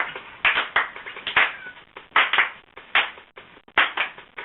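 Hand claps in a steady rhythm, mostly in pairs about once a second, setting the beat for a song.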